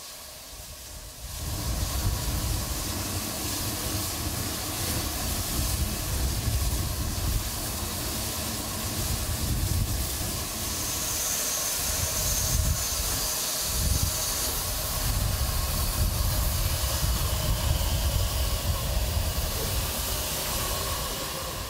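SNCF 141 R 840 Mikado steam locomotive venting steam from its cylinder drain cocks: a loud, steady hiss over a low rumble, starting about a second in.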